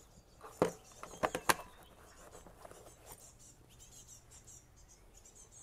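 A few sharp clicks of plastic on plastic as an SW-Motech EVO tank bag is set down and seated on its quick-lock tank ring, the loudest about half a second and a second and a half in. Faint bird chirps follow.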